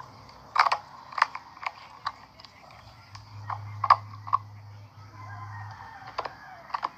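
A person gulping water from a drinking glass: a run of short, irregular swallowing clicks in three clusters.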